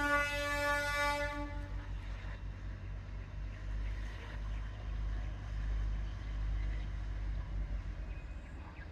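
Horn of a Darjeeling Himalayan Railway NDM6 diesel locomotive finishing a long, single-pitched note that cuts off about a second and a half in. The horn is a warning sounded as the train nears a road crossing. A low steady rumble follows.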